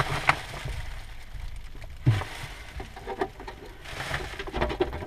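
Scattered light clicks and rustling of handling, with a short low murmur about two seconds in.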